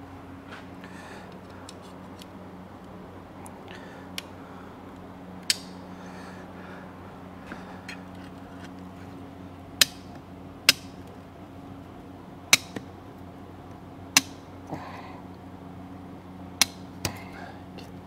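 Sharp metallic clicks and clinks, about nine at irregular intervals, from snap-ring pliers and a steel snap ring being fitted onto a hydraulic swivel joint, over a steady low hum.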